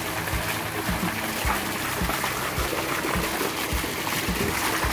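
Strong jet of water from a submersible deep-well pump's outlet pipe gushing and splashing into a tub of water, the pump running at full flow with its factory impeller. The sound is a steady rushing splash.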